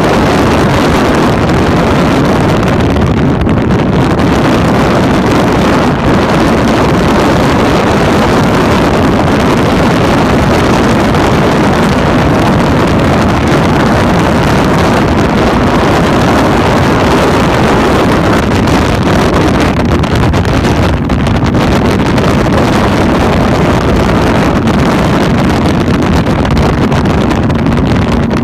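Cruiser motorcycle at steady highway speed: the engine's steady drone buried in loud wind noise rushing over the microphone.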